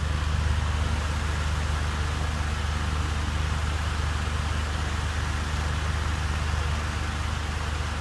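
Electric pedestal fan running steadily, a constant low hum with a rush of moving air.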